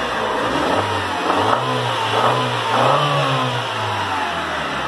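Honda Civic's 1.6-litre four-cylinder engine running with the bonnet open, its revs rising and falling gently a couple of times.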